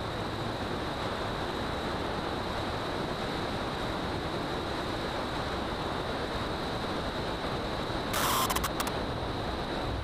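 1989 Beechcraft Bonanza landing: a steady rush of airflow over a camera mounted on the wing, with a brief harsh burst about eight seconds in as the wheels touch down on the runway.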